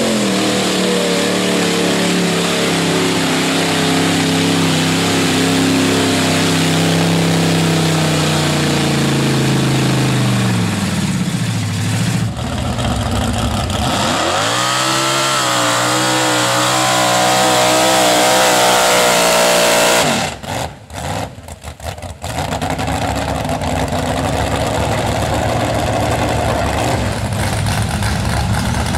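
Mud-bog pickup truck engines under heavy throttle as the trucks churn through a mud pit. The pitch holds high, falls away about a third of the way in, then climbs again. The sound cuts in and out choppily for a couple of seconds about two-thirds through.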